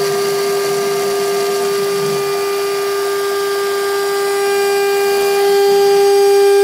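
CNC router spindle running at speed while its cutter mills an acrylic sheet: a steady, high-pitched whine over cutting noise. It grows a little louder about five and a half seconds in.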